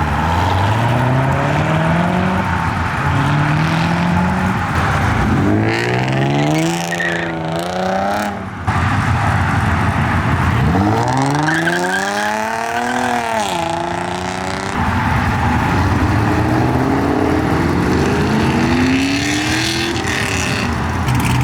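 Performance car engines accelerating hard, the pitch climbing and dropping back with each gear change, and one engine revving up and falling away near the middle. The sound changes abruptly twice as a different pull takes over.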